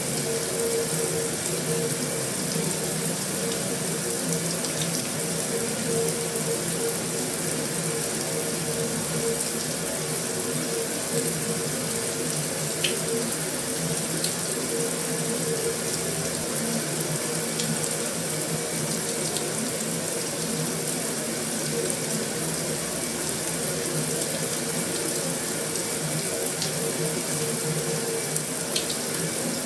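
Heavy rain falling steadily on a metal roof as an even hiss, with a few sharper drop ticks standing out.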